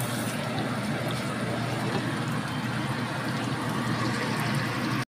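Chili sauce simmering in a wok with a steady bubbling sizzle as the added water cooks down on low heat. It breaks off abruptly near the end.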